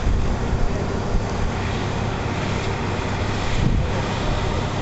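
Steady engine rumble with a rushing hiss, the even drone of engines running on an airport ramp; no distinct events stand out.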